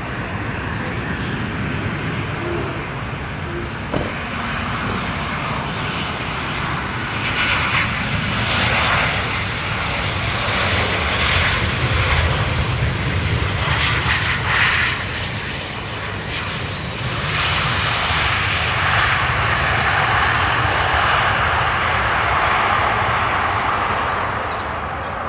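Boeing 737 airliner's jet engines during approach, touchdown and landing roll: continuous jet engine noise that swells to its loudest about halfway through as the plane passes, with a faint high whine falling in pitch, then stays strong.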